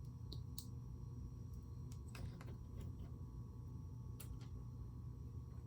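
Faint, scattered clicks and taps of small plastic Lego pieces being handled and pressed together, over a steady low hum.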